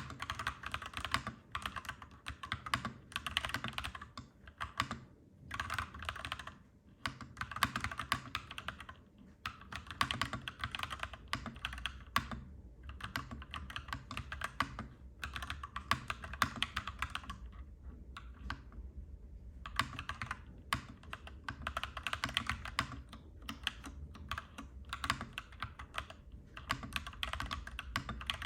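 Clacky mechanical keyboard being typed on in steady runs of keystrokes, broken by a few short pauses. A low steady rumble runs underneath and grows stronger about two-thirds of the way through.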